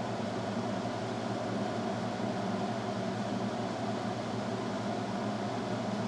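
Cooling fans on the heat sinks of a Haier thermoelectric (Peltier) wine fridge, running at full speed with a steady hum that holds several even tones.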